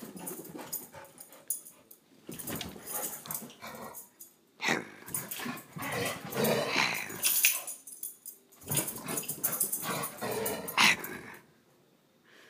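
Dog growling in three long bouts with short pauses between them.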